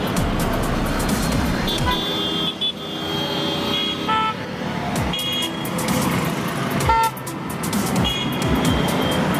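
Dense city-intersection traffic: motorcycle and auto-rickshaw engines running, with vehicle horns honking several times in short toots. Background music is mixed in.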